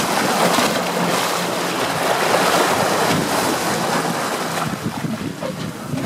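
Water churning and splashing in white foam against a boat's hull, a steady rushing wash, with a faint low hum of the boat's motor beneath it.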